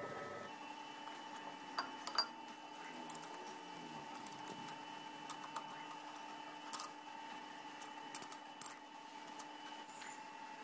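A few light metal clicks and knocks as a welded shaft is handled and seated in a lathe's four-jaw chuck, over a steady hum of several even tones.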